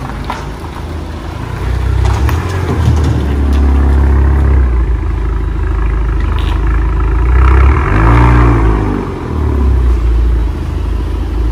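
Proton Suprima S's 1.6-litre turbocharged four-cylinder engine running through a newly fitted modified downpipe and exhaust, revved in place in several blips with a deep exhaust note; the loudest blip rises and falls about eight seconds in.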